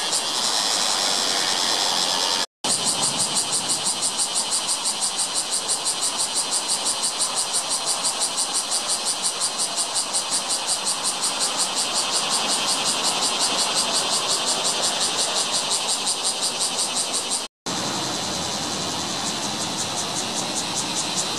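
Bear cicadas (Cryptotympana facialis) singing: a loud, rapidly pulsing high buzz. It cuts out briefly twice, about 2.5 seconds in and near the end.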